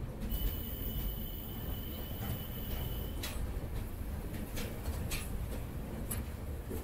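Steady low rumble of a train with scattered short clicks and squeaks, and a thin high whine lasting about three seconds near the start.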